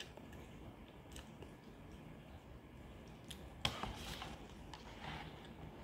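Quiet eating sounds from a paper cup of instant noodles. Chopsticks give a few light clicks and one sharper click a little past halfway, followed by soft rustling as the noodles are stirred in the cup.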